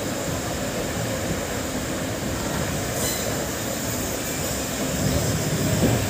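Steady rumble and clatter of a passenger express train's coaches running over the rails and points on a curve, heard from an open coach door, with one sharp click about halfway through.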